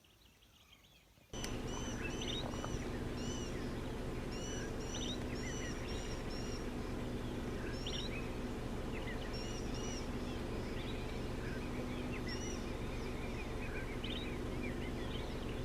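Several wild birds chirping and calling over and over in short high notes, over a steady low hum. The sound starts about a second in, after near silence.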